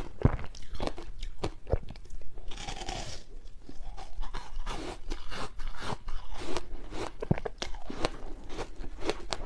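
Close-miked crunching and chewing of a mouthful of soft ice coated in matcha powder: a dense run of sharp, crisp crunches as the ice breaks between the teeth. There is a short hiss about three seconds in.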